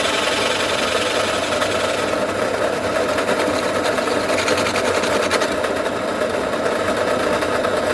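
A machine running steadily with a rapid, even mechanical chatter.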